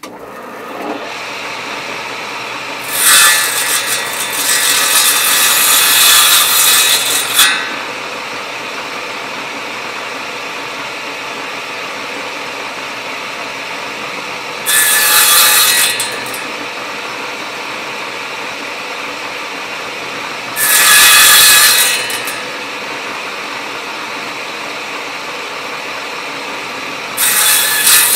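Table saw starting up and running steadily, its blade crosscutting a pine 2x2 strip four times to part off step blocks: a long cut about three seconds in, then three shorter cuts spread through the rest.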